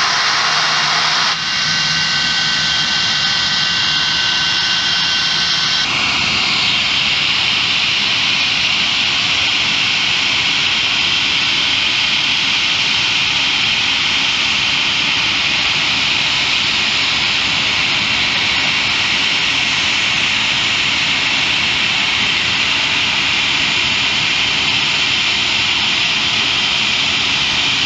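English Electric Lightning jet fighters' Rolls-Royce Avon turbojets running on the ground: a steady, loud jet noise with a piercing high whine, whose tone changes abruptly about six seconds in.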